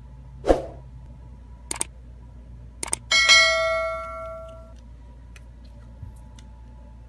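Subscribe-button animation sound effect: a short whoosh, a few quick mouse clicks, then a bell ding that rings and fades over about a second and a half.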